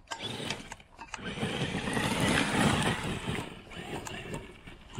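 Traxxas X-Maxx 8S RC monster truck driving across snow: its brushless electric motor whines and the paddle tires churn and throw snow. The sound swells about two seconds in and eases off near the end.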